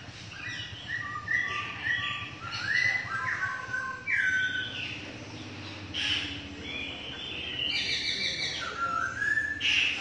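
Caged songbirds singing: bright whistled phrases of quick notes stepping and gliding in pitch, repeated in bursts with short pauses between them.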